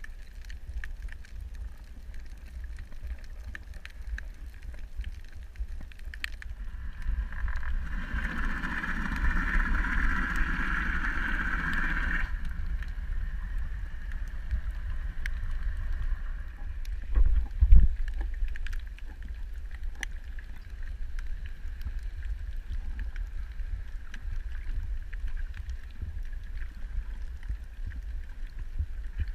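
Underwater ambience: a steady low rumble of water against the camera housing with a faint steady hum. A louder rushing noise runs from about 7 to 12 seconds in, and there is a single thump near 18 seconds.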